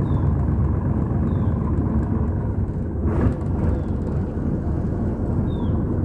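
Boat engine running with a steady low rumble, with a brief louder rush of noise about three seconds in.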